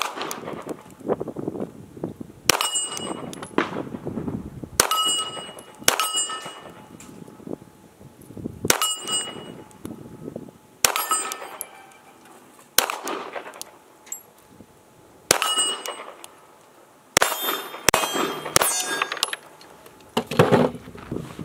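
About a dozen pistol shots from a Walther match pistol firing reloaded rounds primed with CCI 400 small rifle primers. They come slowly, one every two to three seconds, then four in quick succession near the end, and every round fires. Several shots are followed by a clear ringing clang, typical of a bullet striking a steel target plate.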